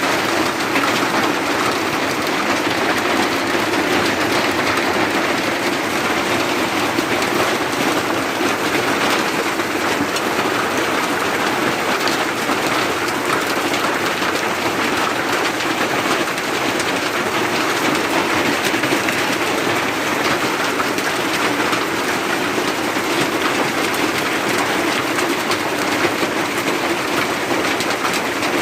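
Rain falling steadily and densely, an even, unbroken hiss of drops.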